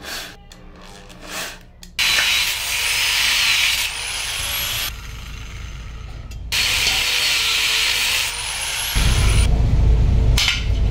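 Electric power drill running in three short bursts that start and stop abruptly, its motor whine rising and falling in pitch, followed near the end by a loud low rumble.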